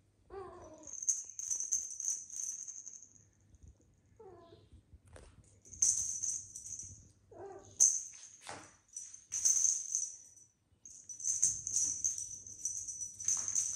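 Kittens meowing, three short calls, over the jingling of a small bell on a wand toy being shaken in bursts, with light clicks and knocks of play.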